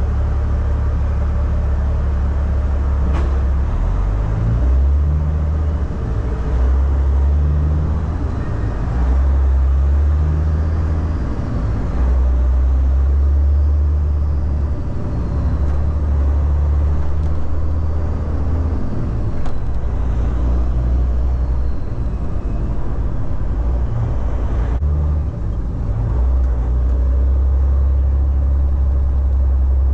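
Caterpillar C15 diesel of a Peterbilt 389 pulling away with a loaded container chassis and working up through the gears: a steady low drone that climbs and drops back in steps every few seconds as it shifts.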